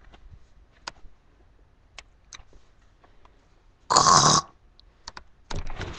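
A few faint clicks and taps, then about four seconds in a girl lets out one short, loud, harsh rasping noise from the throat.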